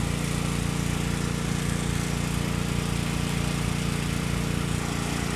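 Portable generator engine running steadily, powering an arc welder, with a steady hiss over it.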